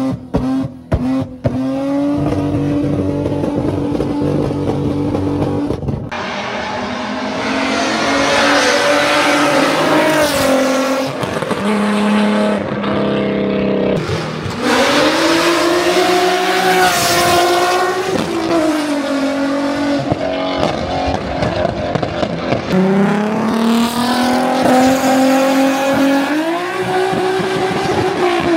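Infiniti G37's V6 running through an aftermarket exhaust: a steady drone for the first few seconds, then repeated revving, the pitch climbing and dropping again and again as the car accelerates.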